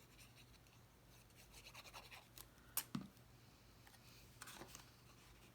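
Faint scratching and rustling of paper craft pieces being handled and fitted together, with a sharp click and a soft tap about three seconds in, over a low steady hum.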